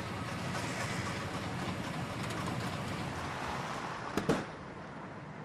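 Old pickup truck's engine running as the truck pulls up and stops. About four seconds in comes a sharp double click, after which the running sound gets quieter.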